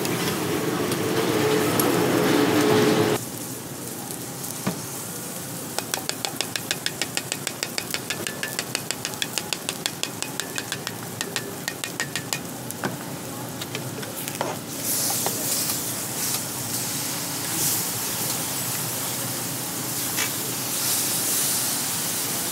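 Ramly burger patties sizzling on a flat steel griddle, loud for the first three seconds before the level drops suddenly. From about six to thirteen seconds a steel seasoning shaker rattles in quick, even taps, about four a second, over the patties; after that the sizzling goes on with a few scrapes and clicks of tongs and scraper on the griddle.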